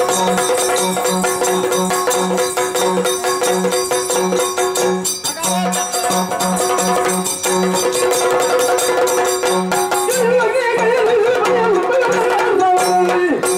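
Yakshagana ensemble music: chende and maddale drums playing quick strokes with small hand cymbals over a steady drone. About ten seconds in the drumming thins and a voice sings a wavering melodic line.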